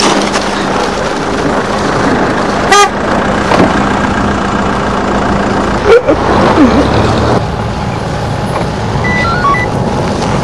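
Vehicle engines running with outdoor street noise and a steady hum, a short horn toot about three seconds in, and a sharp knock about six seconds in.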